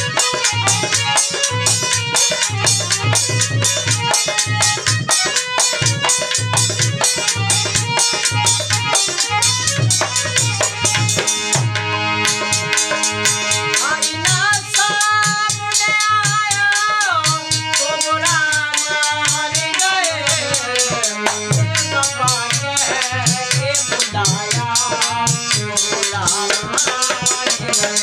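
Live ghazal accompaniment: a harmonium holding chords over fast, even dholak drumming. About halfway through, a man's singing voice comes in with a bending melody over the harmonium and drum.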